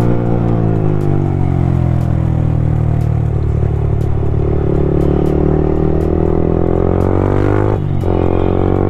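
Motorcycle engine running on the road, its revs falling over the first few seconds and then holding steady, with a brief dip near the end. Sharp exhaust pops and crackles come through it about once a second.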